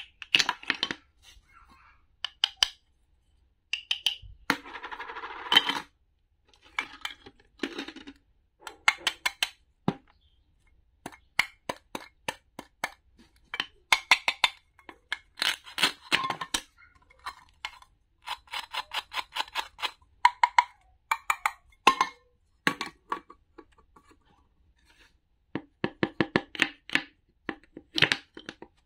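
Toy cutting play: a wooden toy knife taps and clacks on a wooden cutting board and on plastic play food as pieces are cut apart, giving clusters of quick sharp clicks. About five seconds in there is a rasping noise lasting about a second.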